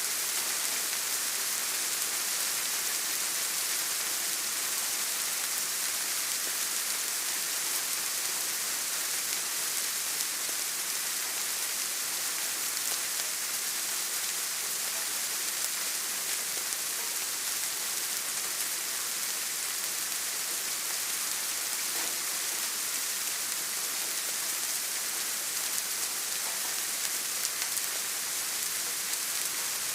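Steady rain falling, an even hiss with fine scattered drop patter.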